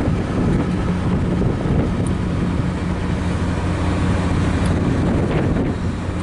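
A MARC commuter train's diesel locomotive running steadily while the train stands at the platform, an even low hum, heard from inside a car.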